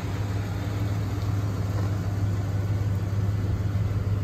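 A 1978 Lincoln Town Car's 460 V8 idling, a steady low hum that does not change.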